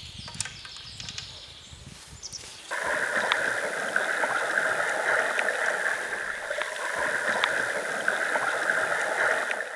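A quiet outdoor background with a few light clicks. About three seconds in, it switches abruptly to steady water sound, gurgling and lapping with small scattered ticks.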